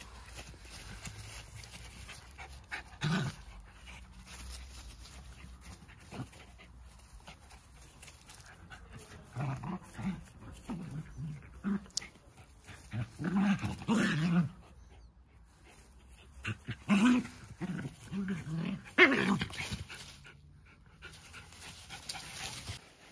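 Jack Russell terriers growling in the play-fight of wrestling, with panting between bouts. The growls come in several separate bursts, loudest about three-quarters of the way through.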